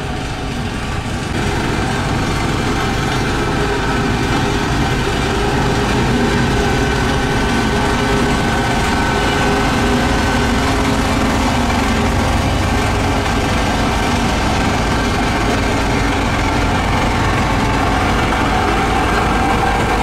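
Diesel engine of a Volvo SD110 single-drum road roller running steadily at close range as the roller drives over a crushed-stone base. It gets louder about a second and a half in.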